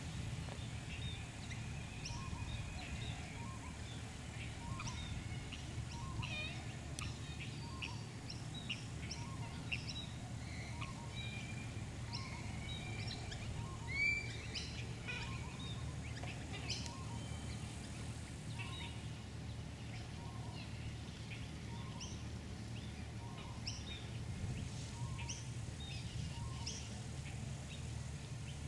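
Birds chirping and calling throughout over a steady low rumble, with a soft note repeating about every second and a half and one louder rising chirp about halfway through.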